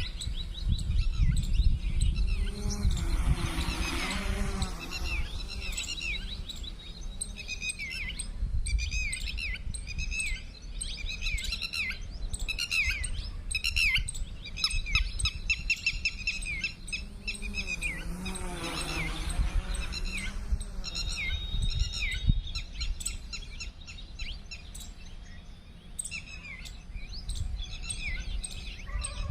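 Small birds chirping and calling over and over, over a low wind rumble on the microphone. Twice, about four seconds in and again near the middle, a motor hum swells up and fades away.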